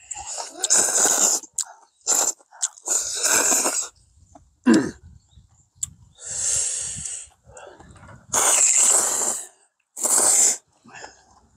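People slurping ramen noodles: several separate slurps, each lasting from a fraction of a second to about a second, with short pauses between them.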